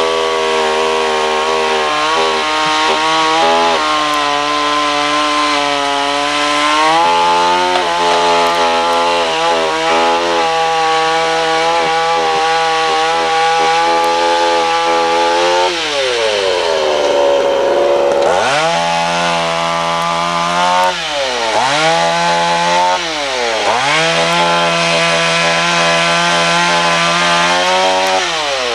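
Two-stroke chainsaw running at high revs in a tree-removal job. In the second half its pitch drops and climbs back again several times as the throttle eases off and opens up.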